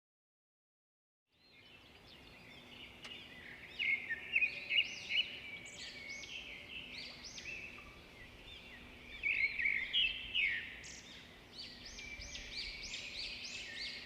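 Several songbirds singing together, a dense run of overlapping chirps and short whistles that starts after about a second and a half of silence, over a faint steady hum.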